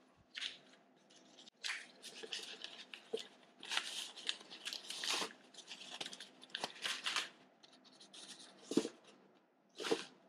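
Plastic packaging and small plastic GoPro mount parts being handled and put into a small bag: irregular rustling with a few sharp clicks.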